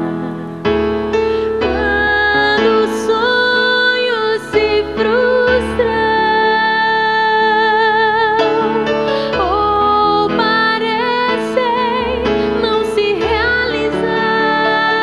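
A woman singing a slow Portuguese worship ballad, with instrumental accompaniment. She holds long notes, and some of them waver with vibrato.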